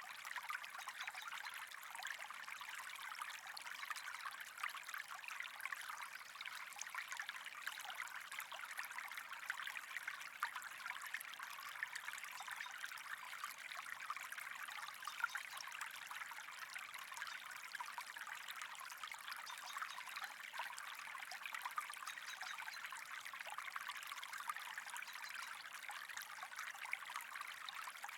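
Steady trickling, bubbling running water with fine crackling detail, even throughout with no breaks.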